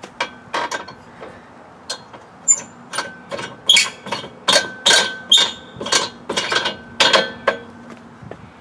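Hammer blows on metal, each ringing briefly: a few spaced strikes, then a faster, louder run of two to three a second from about three seconds in, stopping near the end.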